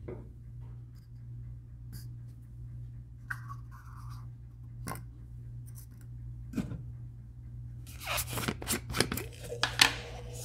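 Paper cups and a plastic resin bottle being handled around a digital scale: scattered light clicks and taps, then a dense run of crinkling clicks about eight seconds in, over a low steady hum.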